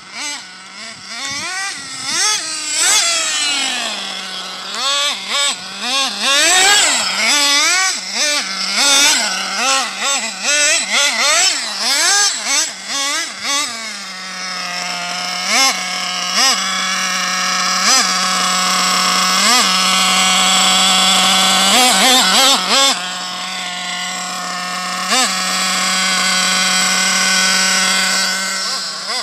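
A nitro RC car's small glow engine, fitted with an aluminium tuned pipe, revving up and down over and over as the car drives and slides. About halfway through it settles into a steady high-pitched note with a few short blips. The owner says the engine still needs tuning at the high-speed end.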